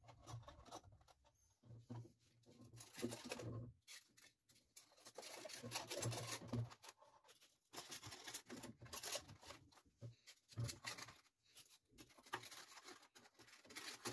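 Polystyrene foam pieces rubbing and scraping against a 3D-printed plastic hull as they are pressed in by hand, with light knocks of the hull being handled. Faint and on and off.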